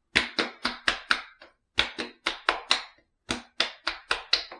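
Wet open hands slapping aftershave onto the face and neck. There are about sixteen quick, sharp pats in three runs of about five, with short pauses between the runs.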